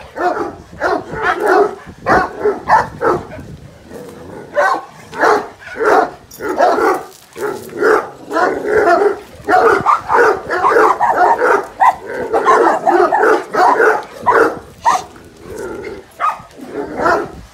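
Dog barking over and over, short barks coming several a second in quick runs.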